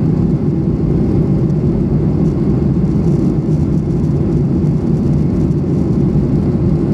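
Boeing 737-800 cabin noise in flight, heard from a window seat: a steady, even low rumble of the engines and airflow.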